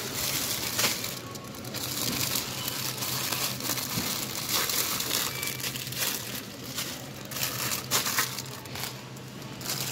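Plastic bread bags crinkling and crackling irregularly as packages are picked up and handled on a wire shelf, over a steady low hum.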